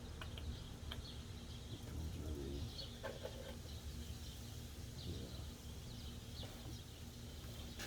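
Birds chirping faintly and intermittently over a low, steady background rumble, with a few light clicks.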